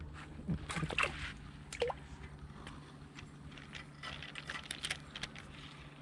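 Spinning reel being cranked as a hooked bluegill is reeled up out of the water, with some splashing. A few sharp knocks in the first two seconds and a run of quick clicks around four to five seconds in.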